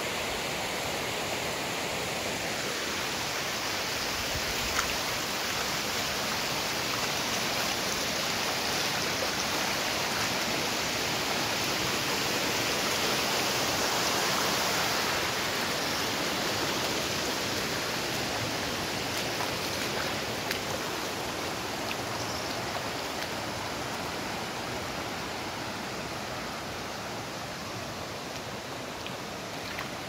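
Shallow river running over flat rock slabs, a steady even rush of water.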